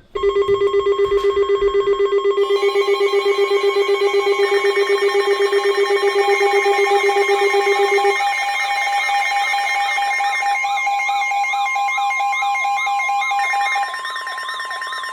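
Layered electronic alert tones. A loud, rapidly pulsing steady tone stops about eight seconds in, under several steady higher tones, and warbling, siren-like tones come in during the second half before the level drops near the end.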